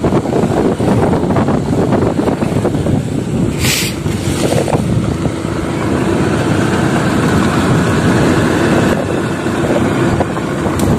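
Motorcycle riding along a dirt road: the engine runs steadily under a dense rush of wind and road noise on the microphone, with a brief hiss about three and a half seconds in.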